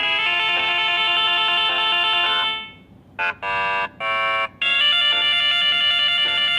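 Samsung Galaxy J4+ built-in ringtones playing. One electronic melody fades out about two and a half seconds in, three short tones follow, and another ringtone starts a little past the middle and carries on.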